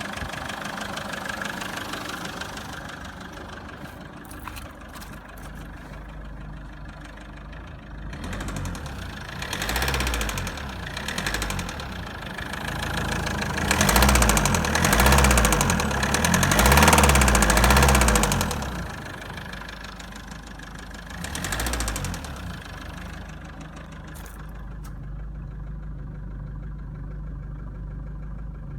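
Mazda 6 2.0-litre diesel engine running with a knocking noise, idling, then revved in several blips, the longest and loudest about halfway through, before dropping back to a steady idle.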